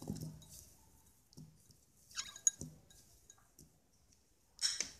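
Boiled potato cubes dropped by hand onto a creamy mayonnaise salad: soft wet squishes with a few light clinks against the dish, the loudest a short noisy rustle near the end.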